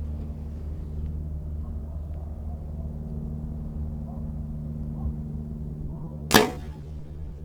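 A compound bow being shot: one sharp loud release near the end, over a steady low hum.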